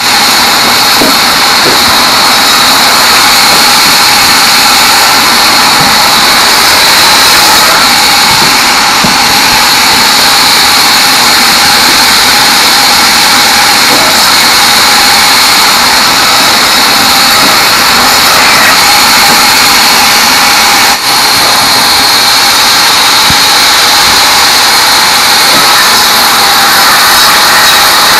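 Large band saw running loud and steady as it rips small teak logs, a constant high-pitched whine over dense machine noise. The noise dips for a moment about three-quarters of the way through.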